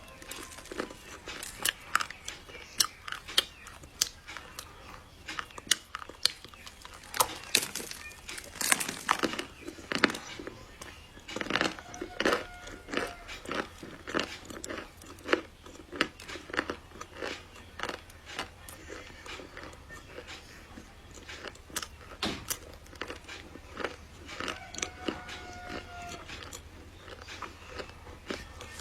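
Close-miked biting and chewing of a large chunk of chocolate: a dense run of sharp, crisp cracks and crunches, several a second, with softer chewing between them.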